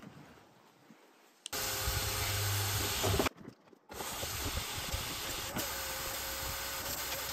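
Canister vacuum cleaner switching on about a second and a half in and running with a loud, steady rushing hiss as it sucks through its hose in a drained inflatable pool. It cuts out briefly around the middle, then runs on steadily.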